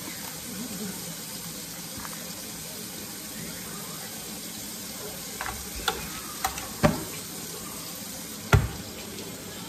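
Raw eggs being tapped and cracked against a plastic container, a few short sharp taps in the second half, over a steady background hiss.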